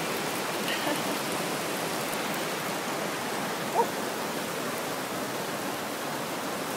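Steady rush of flowing water, an even hiss with no rhythm, with one short rising chirp a little past halfway.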